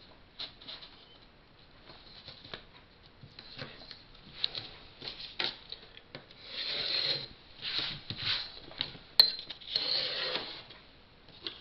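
Pencil scratching along a steel straightedge on drafting paper in several strokes of about half a second to a second each in the second half. Before them come light clicks and taps of the metal rule being set in place, and there is one sharp click about nine seconds in.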